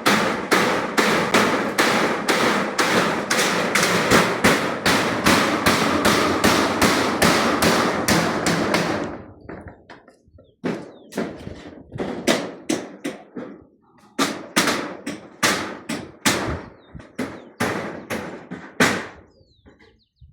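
Rapid repeated knocks, about two to three a second, close together for the first nine seconds, then sparser and uneven.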